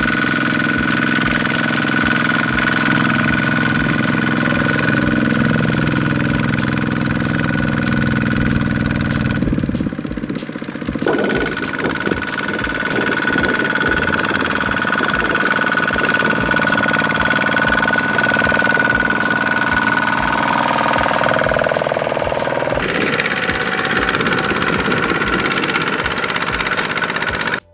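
Single-cylinder diesel engine of a Kubota two-wheel farm tractor running steadily with a knocking chug, with a steady high whine over it. The sound changes abruptly about ten seconds in and again near the end.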